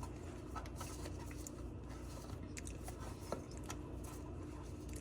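Faint scattered clicks and scrapes of an oil filter removal tool being fitted around the oil filter and tightened, over a low steady hum.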